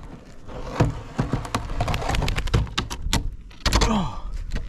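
Irregular knocks and clatter of a wooden skylight frame being worked into a shed roof and nailed in place. A short falling squeak comes near the end.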